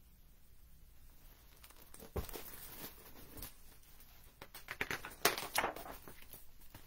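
Paper rustling and a few soft knocks as a hardcover picture book is handled and a page turned. The handling is loudest in a brief cluster of crackles about five seconds in.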